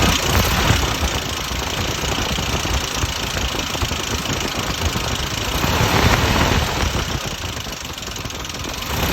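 Buick Dauntless odd-fire V6 in a 1971 Jeep CJ5, running with a loud, tractor-like clankety clank. It grows louder about half a second in and again around six seconds. The owner is unsure whether the clanking is normal for the odd-fire engine or a sign of something wrong.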